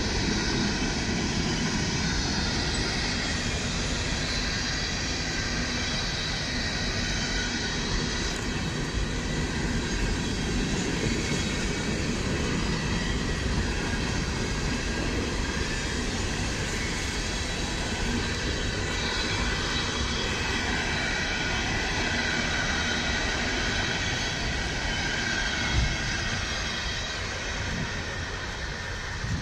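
Freight train of hopper cars rolling through a grade crossing: a steady rumble and clatter of steel wheels on the rails, easing off near the end as the last cars go by.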